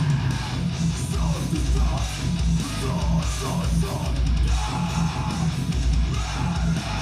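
Electric guitar played through a Behringer MS40 Metal Sound distortion pedal: heavily distorted metal riffing, with chugging low notes and wavering higher notes.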